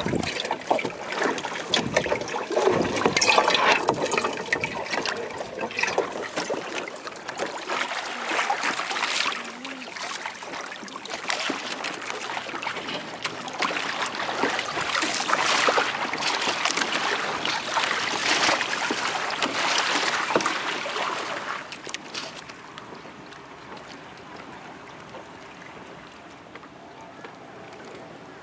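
Water splashing and washing against the hull of a Hobie trimaran sailing kayak under way, in uneven surges with many small splashes. For the last several seconds it settles to a quieter, steady wash.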